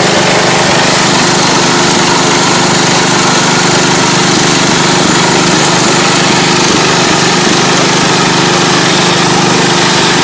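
Small engine of a Massey Ferguson garden tractor running loud and steady as the tractor works in deep mud.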